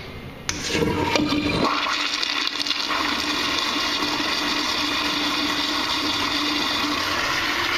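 Toilet flushing, very loud: it starts suddenly about half a second in with a low rush for a second or so, then settles into a steady, loud rushing of water with a constant hum beneath it.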